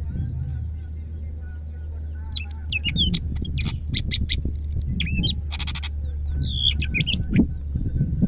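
Green leafbird (cucak ijo) singing a rapid burst of loud, sweeping whistled notes, with a harsh buzzy note partway through, over a steady low hum.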